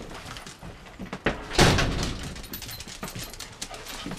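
A house door pushed shut with a loud thud about a second and a half in, followed by light scattered knocks and rustles.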